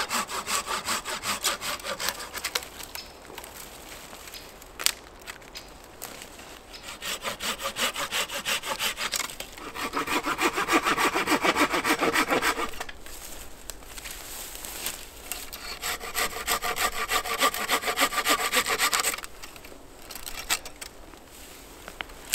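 Hand saw cutting dry dead branches still on a conifer trunk: quick back-and-forth rasping strokes in several bouts with short pauses, the loudest bout a little past the middle, and a few single snaps near the end.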